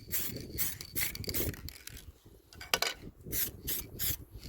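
Aerosol can of tie coat adhesion promoter sprayed in a series of short, irregular hissing bursts, with a pause about halfway through.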